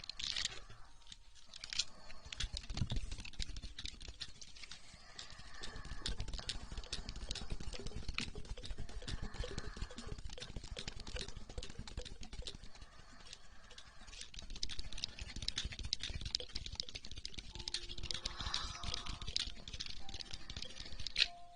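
Aloe vera gel worked over an ear-shaped binaural microphone in an ASMR ear massage: a dense, irregular sticky crackle of small clicks over soft rubbing.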